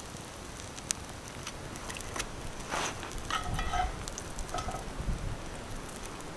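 Pancake sizzling in a cast iron skillet over a wood campfire, with the fire crackling and the sharp clicks of a spatula against the pan. A few brief squeaky tones come about halfway through.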